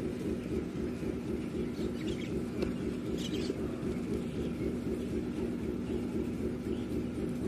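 An engine running steadily, a low, even rumble with a constant hum. A bird chirps briefly about three seconds in.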